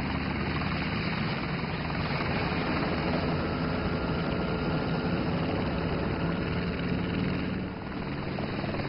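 Helicopter flying overhead: steady rotor and engine noise, dipping briefly near the end.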